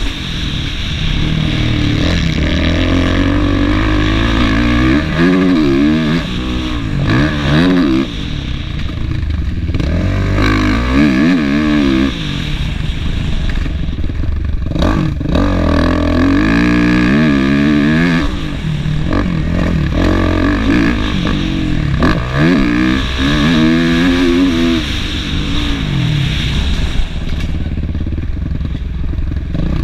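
Kawasaki KX450F's single-cylinder four-stroke engine revving hard and easing off again and again as the rider works the throttle around a dirt motocross track, its pitch climbing and dropping in repeated sweeps. Heard from a helmet-mounted camera.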